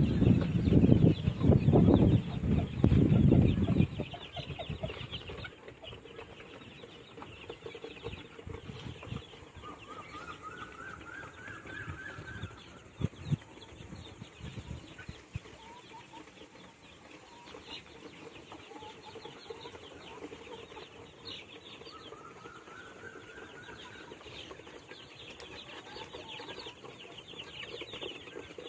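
Young chickens and quail chicks peeping and cheeping in a wire-mesh cage, many quick high chirps throughout. A loud low rumble covers the first four seconds, and twice a short rising run of notes is heard.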